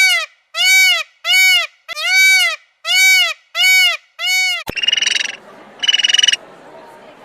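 An animal giving seven short honking calls in a row, each rising then falling in pitch. After an abrupt click about two-thirds of the way through, a different animal gives two buzzy, croaking calls over a background hiss.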